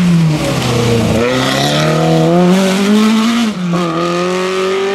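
Ford Escort Mk2 rally car engine at full effort, heard from inside the car. The revs dip about a second in, climb hard, drop sharply with a gear change about three and a half seconds in, then climb again.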